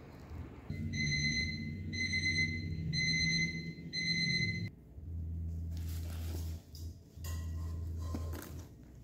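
Background music: a high note sounds four times, about once a second, over a low bass line, followed by a held low bass tone. Light crinkling of bubble wrap being pulled off the case can be heard in the second half.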